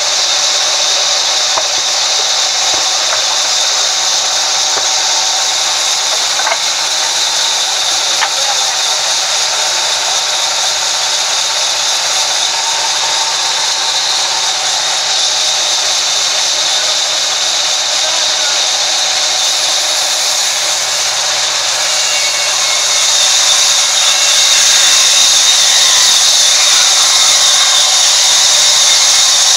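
Vertical band saw mill running, its blade ripping lengthwise through a large log with a steady, high-pitched whirring hiss. It gets a little louder near the end.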